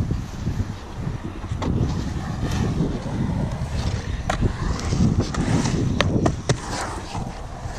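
Skateboard urethane wheels rolling over the concrete of a skatepark bowl as the rider carves the walls, with a few sharp knocks from the board spread through the ride.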